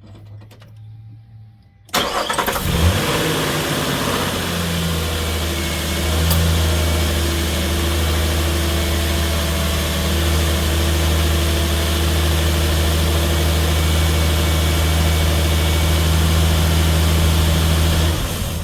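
2019 Nissan Frontier's 4.0-litre V6 engine started about two seconds in, catching quickly and settling into a steady idle, then switched off near the end. It is being run briefly after an oil change to circulate the fresh oil before the level is checked.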